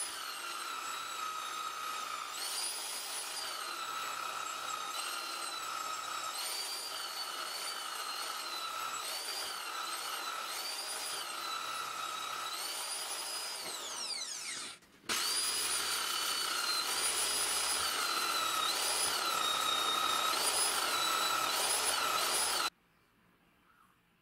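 Angle grinder with an abrasive polishing wheel, running with a high whine whose pitch dips again and again as the steel pliers are pressed to the wheel. About halfway through it winds down and goes quiet for a moment, then runs again, and cuts off suddenly near the end.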